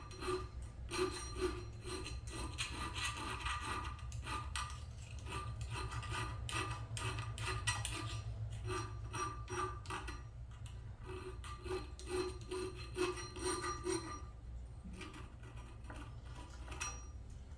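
Small hand file rasping back and forth across the edge of a scrap-metal blade clamped in a vise, in quick, regular strokes, smoothing the finger notch. The strokes thin out and get quieter near the end.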